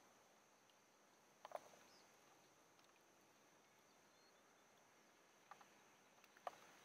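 Near silence: a faint, steady, high-pitched insect drone, with a few soft clicks about a second and a half in and near the end.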